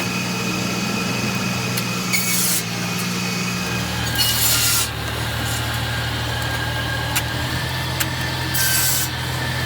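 Homemade powered saw running with a steady motor hum, its blade cutting wood in three short bursts.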